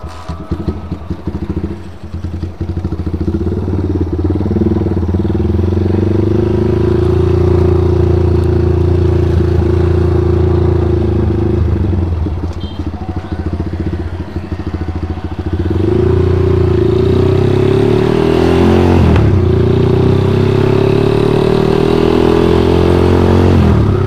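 Freshly rebuilt Honda GL single-cylinder four-stroke motorcycle engine running while being ridden: it comes in loud at the start, holds a steady pitch, eases off about twelve seconds in, then pulls again with the pitch climbing near the end. The rider finds the engine still stutters (brebet) at high revs after the rebuild.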